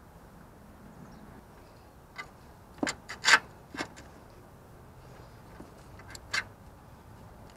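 Hands working the old Prius inverter water pump and its rubber coolant hose loose: a few short clicks and knocks of plastic and clamp, loudest about three seconds in, with two more near the end.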